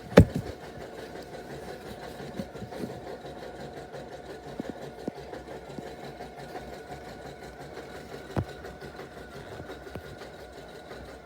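Steady mechanical hum of a small machine running, with one sharp click just after the start and a few fainter knocks later.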